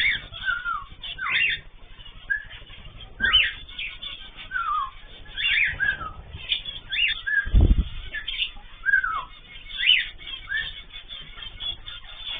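Cage birds calling: short chirping notes that sweep up and down in pitch, several a second at times, irregular and overlapping. A low thump comes about seven and a half seconds in.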